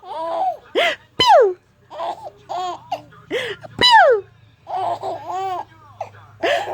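Someone sneezing over and over, each time a drawn-out 'ah' building to a sharp 'choo', and a baby answering each sneeze with a loud, high squealing laugh that falls in pitch. The laughs come twice, with a third sneeze building near the end.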